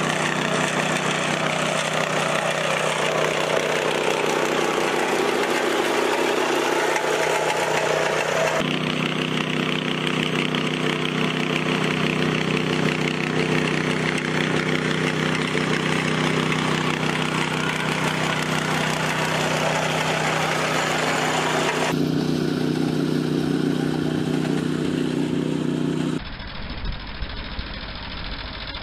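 Small petrol engine of a walk-behind sod cutter running steadily, its tone shifting abruptly twice. A couple of seconds before the end it gives way to a quieter, duller tractor engine pulling a sod harvester.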